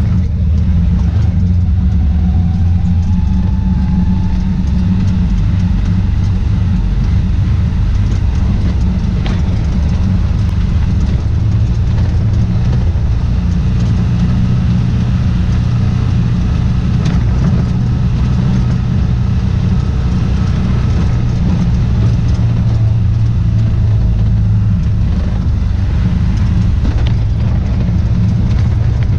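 Side-by-side utility vehicle's engine running steadily under way on a rough dirt track, heard from inside the enclosed cab as a continuous low drone, with a few faint knocks from bumps in the track.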